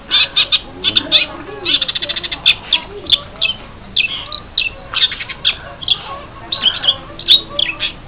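Long-tailed shrike calling: many short, sharp calls in quick, irregular succession, with a fast run of clicking notes about two seconds in.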